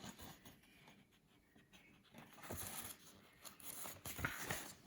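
Faint paper rustling of a picture book's pages being handled and turned, in two short spells in the second half.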